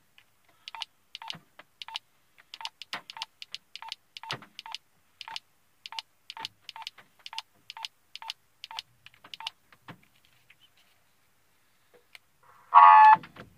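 Two-way radio keypad beeping: a run of short, evenly pitched key-press beeps, about two to three a second for some nine seconds, as the ham radio is programmed. After a pause, a louder, longer tone sounds near the end.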